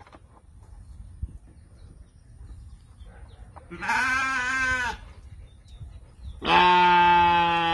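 Sheep bleating: one short bleat about four seconds in, then a longer, lower bleat starting near the end.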